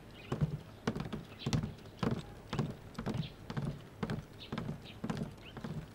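Footsteps of several people walking on a wooden floor, about two steps a second in an even rhythm.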